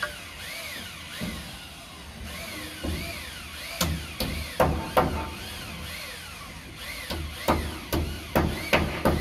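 Hand hammer striking roof timber in irregular blows, a few at first, then quick clusters from about four seconds in and again near the end. Behind them, a high wavering whistle rises and falls about twice a second.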